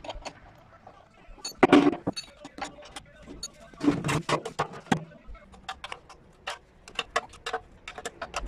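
Metal tools clinking against the steel spider arm, bolts and drum of a washing-machine tub, a string of short sharp clinks, with two louder, longer sounds about two and four seconds in.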